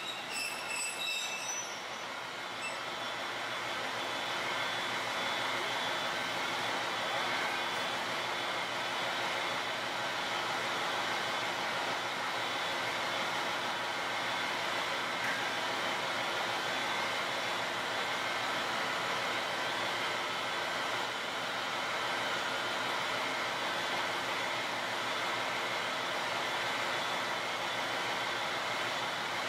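JR Shikoku KiHa 32 diesel railcar stopping, with a brake squeal that dies away in the first second or two. Its diesel engine then idles steadily while the railcar stands at the platform.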